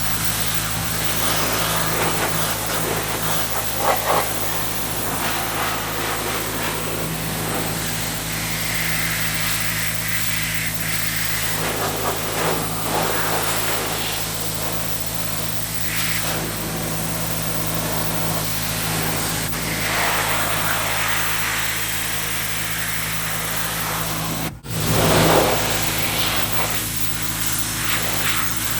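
Pressure washer running steadily, a constant motor hum under the hiss of its water jet spraying against a car body. The sound briefly drops out near the end.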